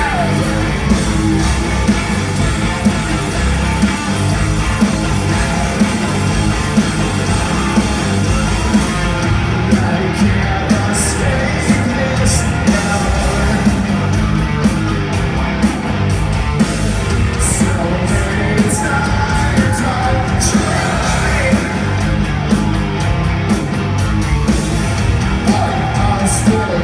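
Live alternative-metal band playing loud in a large hall: distorted electric guitars, drums and a male lead singer, heard from within the audience. The drum beat comes through more clearly from about nine seconds in.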